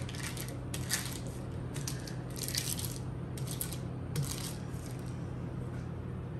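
A few light clinks and rustles of kitchen utensils and containers being handled on a countertop, scattered over the first four seconds, with a steady low hum underneath.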